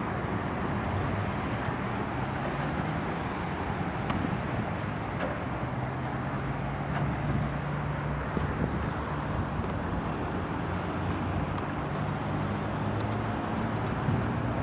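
Steady distant rumble of airliner jet engines across the airfield, with a low drone beneath it.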